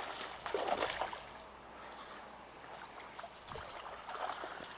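A hooked bass thrashing at the water's surface: a burst of splashing in the first second, then fainter, scattered splashes.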